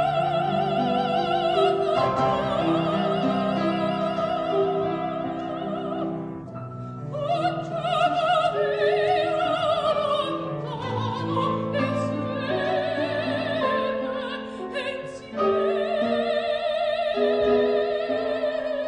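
Operatic soprano singing sustained phrases with a wide vibrato over instrumental accompaniment. The voice breaks off briefly about six seconds in and again near fifteen seconds.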